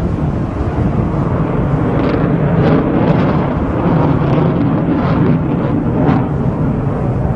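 Lockheed Martin F-22 Raptor's twin Pratt & Whitney F119 turbofans as heard from the ground during a low maneuvering pass: loud, steady jet noise with a few short crackles in the middle.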